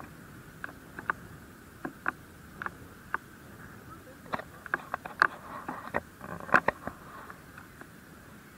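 Irregular light clicks and taps, a few a second and bunched in the middle, over a faint steady hiss.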